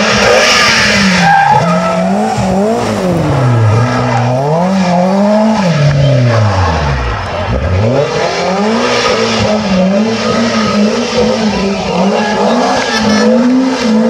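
BMW E30 M3 rally car's four-cylinder engine revving hard, its note rising and falling through the gears. About seven seconds in it drops low as the car slows for a hairpin, then climbs again as it powers away.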